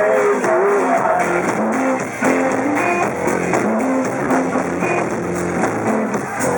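Band playing live rock music, with guitar to the fore and a melody line moving over a steady rhythm.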